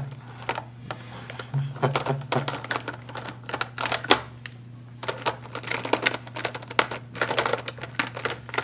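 Plastic Crayola Scentsations marker barrels clicking and rattling against one another as a hand rummages through a cup of them and pulls markers out. It is an irregular run of small, sharp clicks.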